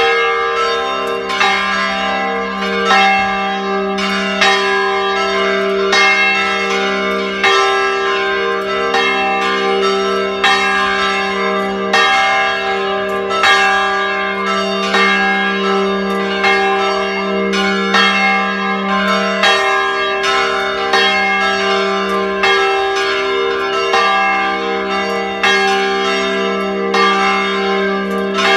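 Church bells ringing, strike after strike in quick succession, with their deep hum tones lingering underneath.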